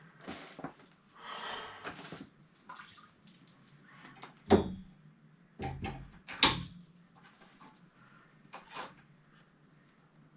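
Hand work on pipe strapping: scattered knocks, clicks and rustling, with two sharp knocks about four and a half and six and a half seconds in.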